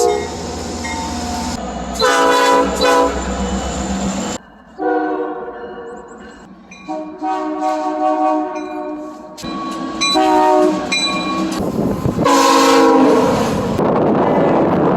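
Multi-chime locomotive air horn sounding a string of chord blasts, a couple short and several held for a second or two, over the low rumble of the train running by.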